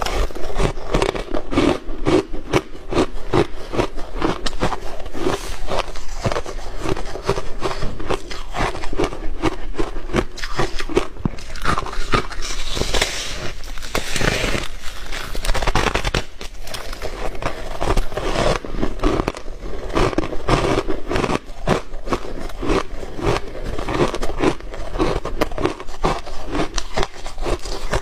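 Biting and chewing big mouthfuls of refrozen shaved ice: a dense, unbroken run of crackling crunches, sharper and brighter for a few seconds about halfway through.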